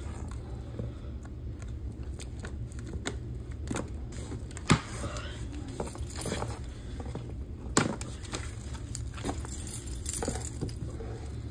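Clicks, knocks and rustles of a large cardboard couch box and its packaging being handled and opened, with two sharper knocks about five and eight seconds in, over a steady low hum.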